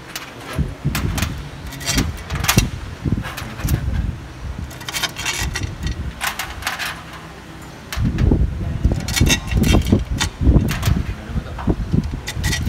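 Steel bolts clinking and rattling against a sheet-metal tray and the aluminium gearbox housing as they are taken out by hand and set down, a run of sharp metallic clicks. About two-thirds of the way through, heavier knocks and rumbling handling noise join in.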